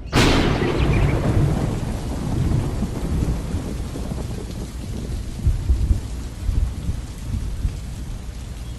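A sudden thunderclap that rolls on as low rumbling thunder over steady rain, with further rumbles past the middle.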